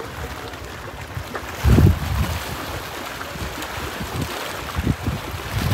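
Wind buffeting the microphone over a steady rush of choppy lake water lapping against stone steps, with a strong gust about two seconds in.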